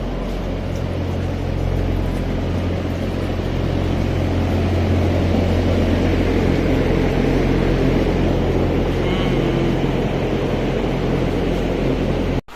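Large ventilation fans in a caged layer-hen house running, a loud steady drone with a low motor hum under the rush of air.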